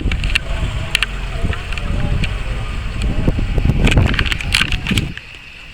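Wind buffeting the microphone as a heavy, uneven rumble, with scattered sharp clicks and knocks, dropping away about five seconds in.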